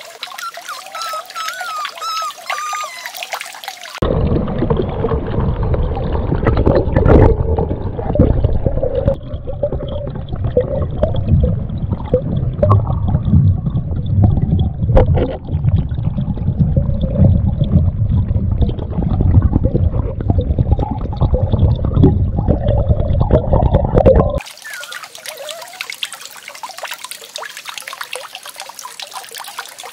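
Water running and trickling. About four seconds in it becomes a heavier, lower gush that cuts off suddenly near the end, leaving lighter trickling again.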